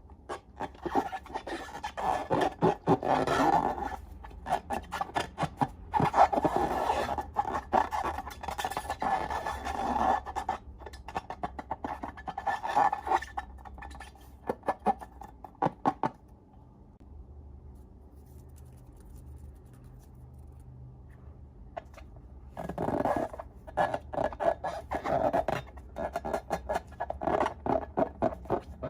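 Slime being squeezed and worked by hand, giving rapid sticky clicks and crackles in bursts. The crackling stops about 16 seconds in and starts again around 23 seconds.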